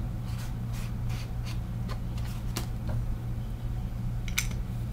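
Faint, scattered taps and light scuffs of a small chalk ink pad and a chipboard tag being handled, over a steady low hum, with a small click near the end as the pad's plastic lid goes back on.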